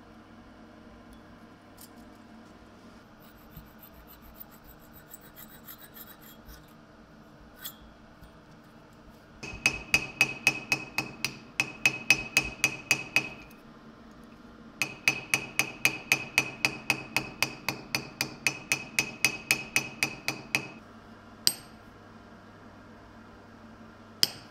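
Quick, light hammer taps on a copper hinge resting on a small steel stake, about five a second in two runs of several seconds each, every tap leaving a bright ringing note. Faint scratchy handling of the copper comes first, and two single sharp strikes follow near the end, the last on a punch set against the copper.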